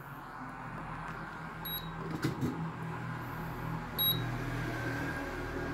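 Induction cooker running with a steady hum and hiss from its cooling fan, now working after a replacement processor cleared its E0 fault. Its control-panel buzzer gives a short high beep twice, about two seconds in and again about four seconds in, as its buttons are pressed.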